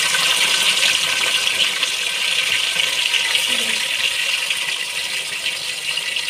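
Raw chicken pieces sizzling in hot oil with fried onions in a cooking pot, a steady hiss that fades slightly toward the end as the chicken starts to fry.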